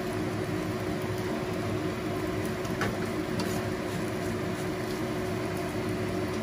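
Omelette frying in oil in a nonstick frying pan, a steady sizzling hiss over a low steady hum, with a few light ticks of a plastic slotted spatula against the pan around the middle.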